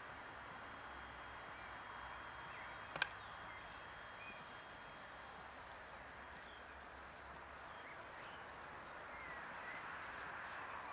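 Faint outdoor ambience with birds chirping: two runs of short, quickly repeated high notes and a few rising calls over a steady hiss. A single sharp click about three seconds in.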